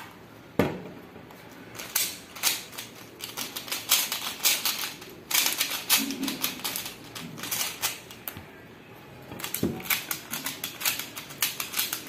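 Plastic Rubik's-style speed cubes being twisted rapidly by hand: quick irregular runs of clicking and clacking as the layers turn, in bursts with brief pauses.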